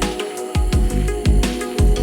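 Background electronic music with a steady beat: deep bass-drum hits and hi-hat ticks under sustained synth notes.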